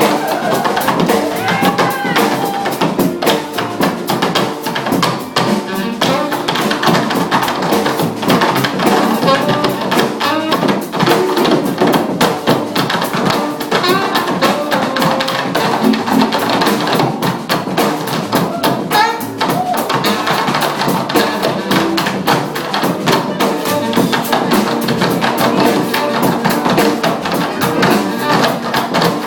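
Funk band playing, a drum kit keeping a busy beat under gliding melodic lines.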